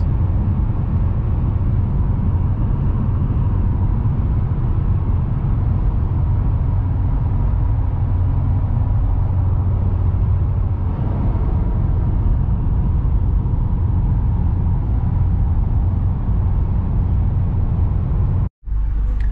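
Cabin sound of a Subaru WRX STI cruising at highway speed: a steady low drone from its turbocharged flat-four through a non-resonated cat-back exhaust, mixed with tyre and road noise. It drops out for a moment near the end.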